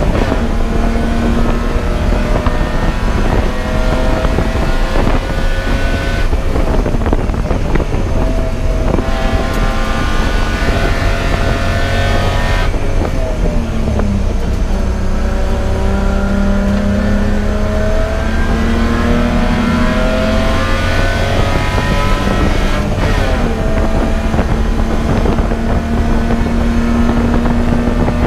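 Race car engine running hard on track, its pitch climbing and dropping with gear changes and throttle lifts several times over.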